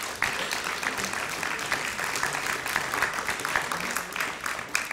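Audience applause: many hands clapping together steadily.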